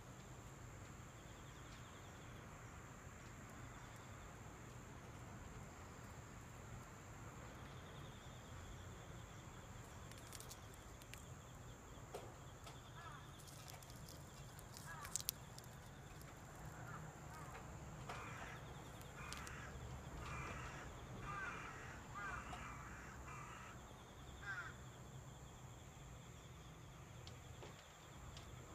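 Faint outdoor ambience with a steady high-pitched hum, and a bird calling about half a dozen times in a row during the second half.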